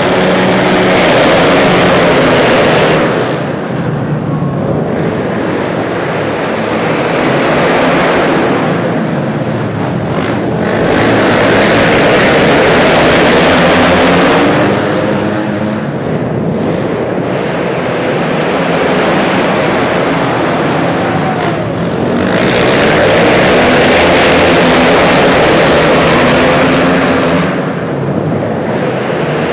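A pack of flat track racing motorcycles at full throttle on a dirt oval. The loud, hard engine note swells and fades several times as the bikes circle the track.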